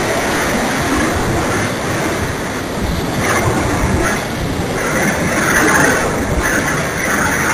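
Wind rushing over the onboard camera's microphone on an electric Opterra RC flying wing in flight, mixed with the noise of its motor and propeller. It is a steady, loud rushing that turns hissier about halfway through as the plane comes down low over the grass.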